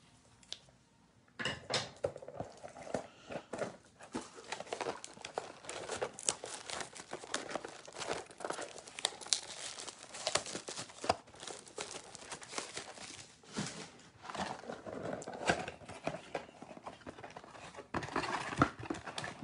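Plastic shrink wrap being torn off a cardboard trading-card blaster box and crumpled: a busy, continuous run of crinkles, tears and sharp crackles that starts about a second and a half in.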